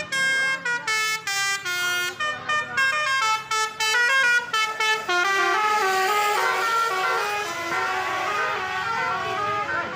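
Basuri 'telolet' multi-tone horn playing a tune. A quick run of short stepped notes gives way about halfway through to longer notes that overlap in held chords.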